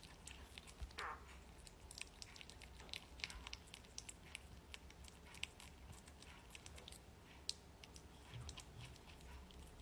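Faint, irregular crunching: many small clicks at an uneven pace, with a low steady hum underneath.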